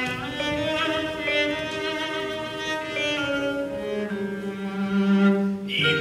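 Instrumental music led by bowed strings: a slow melody of long held notes with vibrato over a lower held note.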